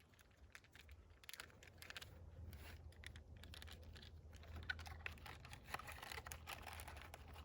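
Faint scattered clicks and rustles of hands handling the headlight restoration kit's cleaner and cloths, over a low steady hum.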